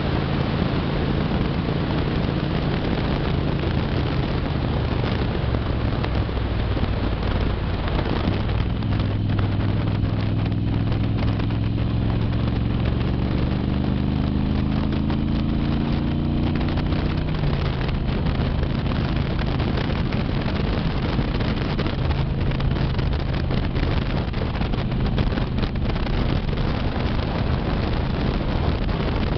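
Moto Guzzi motorcycle's V-twin engine running at road speed, mixed with heavy wind noise on the microphone. About a quarter of the way in, the engine note climbs steadily for some ten seconds as the bike pulls harder, then falls back suddenly past the middle.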